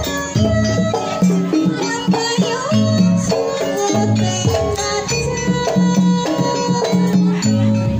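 Traditional Javanese jaranan ensemble music played continuously: hand drums keep a steady, repeating rhythm under pitched melodic notes.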